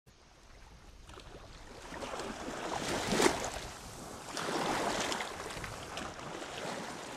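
Small waves washing in on a shore. The sound fades up from quiet, then swells twice, with the loudest surge about three seconds in.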